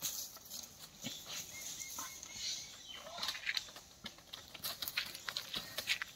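Goats moving over bundled stalks: hooves make scattered clicks and rustles on the stalks, with a few short goat calls.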